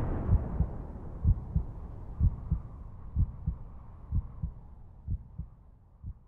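Heartbeat sound effect: slow double thumps, about one beat a second, over a fading wash of reverb, growing quieter until it dies away near the end.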